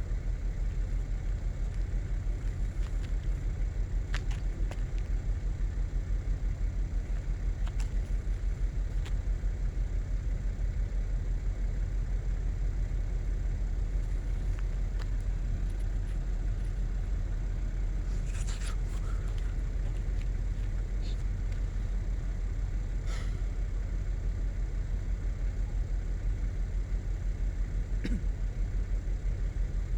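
Steady low rumble of a running engine with a fast, even pulse, like a vehicle idling. A couple of faint short ticks come in the second half.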